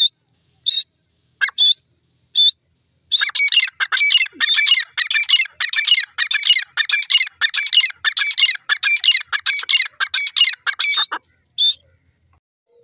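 Grey francolin calling: a few short single notes, then about eight seconds of a loud, rapid run of repeated notes, closing with one more single note.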